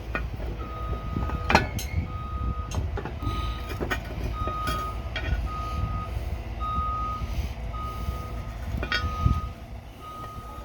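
Construction vehicle's reversing alarm beeping steadily about once a second over a low engine rumble, with a couple of sharp metal clanks, the loudest about a second and a half in.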